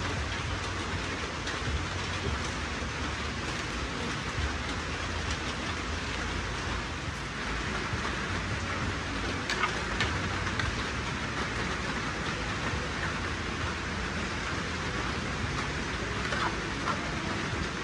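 Steady rain falling, an even hiss with a low rumble underneath and a few sharper drip-like ticks about ten seconds in.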